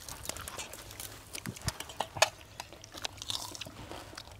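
A person chewing food: a string of irregular small clicks and smacks.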